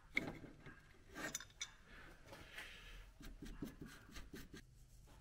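Faint metallic clinks and light scraping of an open-end spanner against a car's front steering tie rod and its locknut during a toe adjustment. There are a few sharp ticks in the first couple of seconds, then softer handling sounds.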